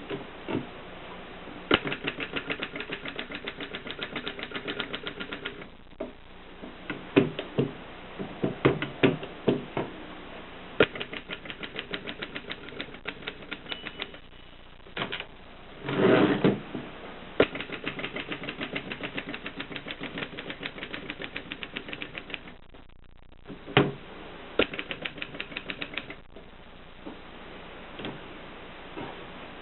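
Mercedes 6 manual typewriter being typed on: fast runs of crisp keystrokes broken by short pauses, with a few heavier strikes and a longer, louder mechanical rasp about halfway through.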